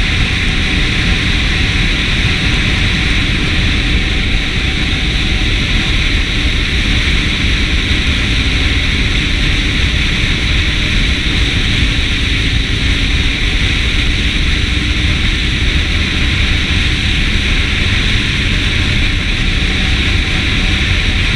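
Motorcycle riding at speed, heard as steady, loud wind rushing over the bike-mounted camera's microphone, with the rumble of the engine and tyres underneath.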